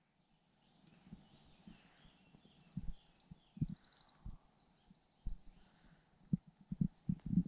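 Footsteps on a dirt track: soft, irregular thuds that come closer together near the end, with faint birdsong in the first half.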